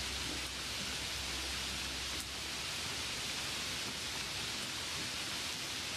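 Steady rain falling on a puddle, an even hiss with no music over it. A low hum underneath dies away about half a second in.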